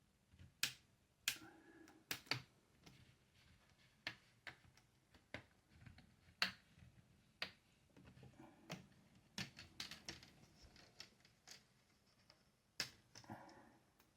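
Plastic clips of a laptop's LCD screen bezel snapping loose one by one as a plastic spudger pries along the edge. Sharp, irregular clicks and snaps, some loud, with light scraping of plastic between them.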